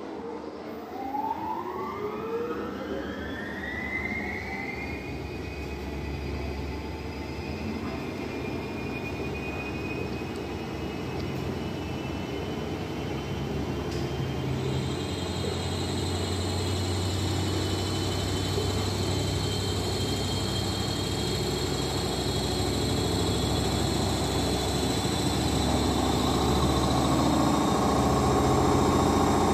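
Commercial front-loading laundromat washing machine starting its spin: the drum motor whines upward in pitch over the first few seconds, then holds a steady whine, and the spin hum grows gradually louder as the drum speeds up.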